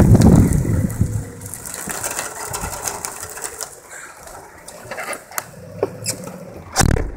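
Wind rumbles on the phone's microphone at first and fades after about a second. Then comes irregular light ticking of raindrops and handling noise, and a heavy thump just before the end.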